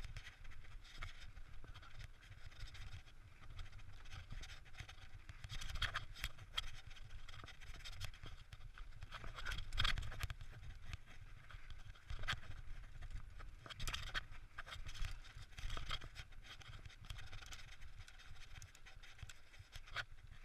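Mountain bike riding fast down a dirt and gravel trail: tyres rolling and crunching over the ground while the bike rattles and knocks over bumps, loudest about ten seconds in, with wind rumbling low on the microphone.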